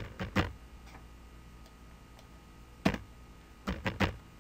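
Scattered keystrokes on a computer keyboard: two quick taps at the start, a single one about three seconds in, and a quick run of four near the end.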